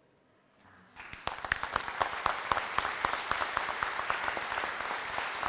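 Audience applause starting about a second in, quickly building from scattered claps to steady clapping by a large crowd.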